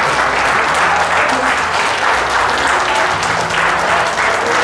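A crowd applauding steadily, dense clapping with no break.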